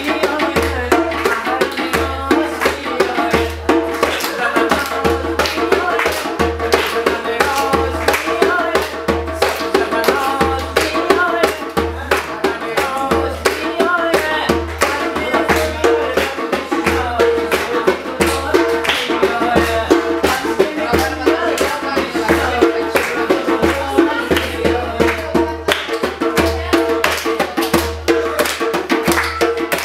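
Music led by a hand drum played with rapid strokes, with people clapping along and a melody line running over it.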